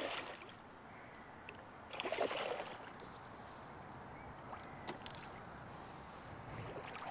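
Water splashing in two short spells: a brief splash at the start and a longer one about two seconds in, with a few faint clicks later.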